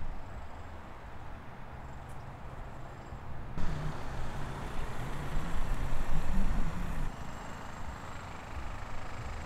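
Outdoor airport ambience: a low, uneven rumble with no clear engine tone. The background changes abruptly twice, getting louder about three and a half seconds in and dropping back about seven seconds in.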